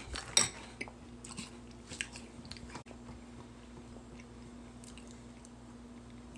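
A person chewing a mouthful of crunchy Pop-Tarts cereal in milk, with a few sharp crunches or clicks in the first two seconds. A low steady hum sets in about three seconds in.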